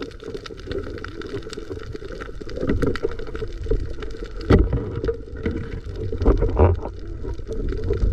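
Underwater sound picked up by a submerged camera: muffled low rushing and gurgling of water, with scattered sharp clicks and a louder knock about four and a half seconds in.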